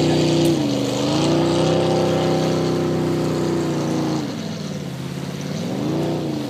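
Motorboat engine running out on the water, its pitch shifting with the throttle: it dips about half a second in, holds steady, drops lower around four seconds, then rises again near the end.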